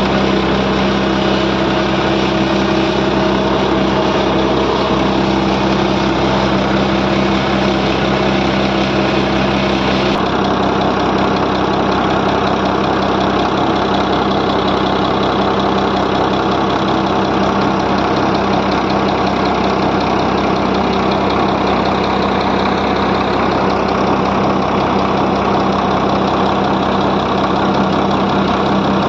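120 hp truck diesel engine, rigged to drive a deep-borewell turbine pump through a PTO, running at a steady speed.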